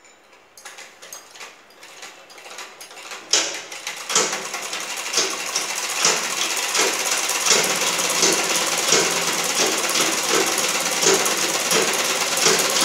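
Sewing machine stitching a seam in cloth: a few scattered clicks at first, getting faster and louder after about three seconds, then a steady rapid run of needle strokes.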